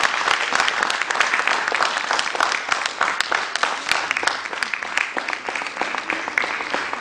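Theatre audience applauding: many hands clapping in a dense, steady patter that eases slightly toward the end.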